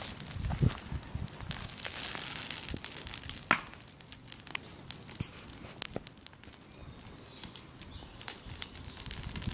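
Bonfire burning, wood crackling and popping in irregular snaps, with one sharper pop about three and a half seconds in.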